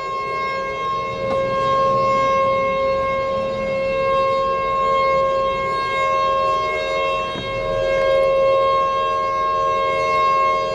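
Outdoor tornado siren sounding close by, a single steady wailing tone whose loudness swells and eases every few seconds, over heavy rain. It is sounding a tornado warning.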